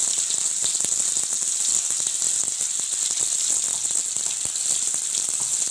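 Hot oil sizzling in a kadai, a steady high hiss with many small crackling pops.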